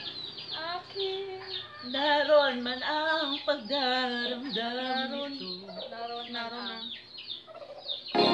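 A voice singing a line unaccompanied, in held, wavering notes. Recorded music cuts off at the start and comes back in near the end.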